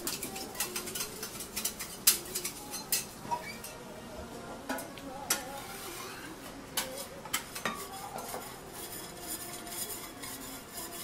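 Metal spatula scraping and clinking on a flat iron teppan griddle: irregular clicks and scrapes, the loudest about two seconds in, over a light sizzle.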